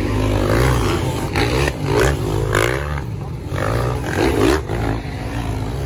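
Several motocross dirt bike engines racing past, revving up and down over one another in repeated rising and falling sweeps.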